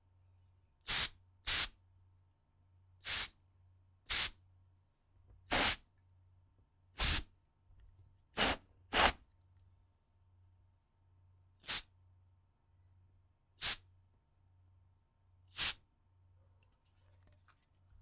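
Compressed-air duster can sprayed in short hissing bursts, eleven of them at irregular intervals, some in quick pairs.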